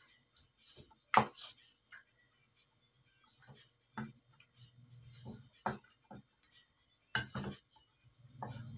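Wooden spatula knocking and scraping against a metal wok as fish are turned in a wet marinade: scattered clinks and knocks, the sharpest about a second in, at about four seconds and near seven seconds.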